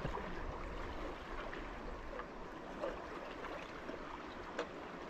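Creek water running steadily, with a faint short tick about three seconds in and another near the end.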